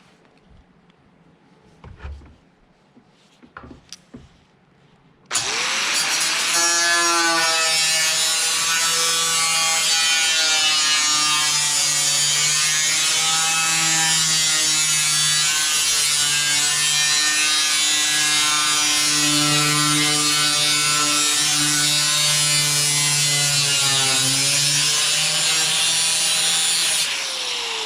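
A few light knocks, then an angle grinder with a cutoff wheel is switched on about five seconds in and cuts metal for some twenty seconds, its whine dipping and recovering in pitch as the wheel bites. It is switched off near the end and winds down with a falling whine.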